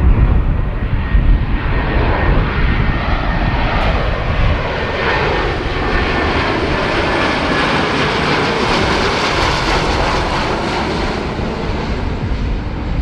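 C-130 Hercules four-engine turboprop transport flying low overhead on approach with its landing gear down. Its engines and propellers run loudly and steadily, with a slow, shifting whoosh as it passes over.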